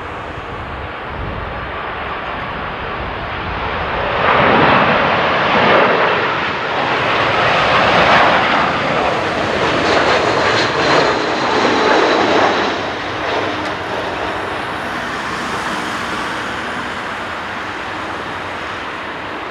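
Airbus A320-232 jet with IAE V2500 turbofan engines passing low on final approach for landing: a rushing jet noise that swells about four seconds in, stays loud and wavering until about thirteen seconds, then eases off.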